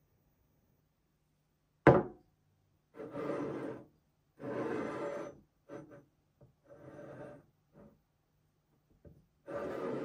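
A ceramic train-shaped mug set down on a tabletop with one sharp knock, then its base scraping and rubbing against the surface in several short strokes as it is turned around.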